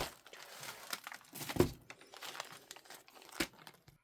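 Packaging crinkling as the next piece of jewelry is unwrapped, with scattered rustles and a few light clicks. The loudest comes about a second and a half in, and another near the end.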